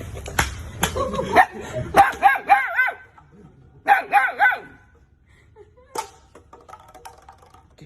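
A dog giving two quick runs of short, high yipping barks, about two seconds in and again about four seconds in, with sharp clicks or taps just before.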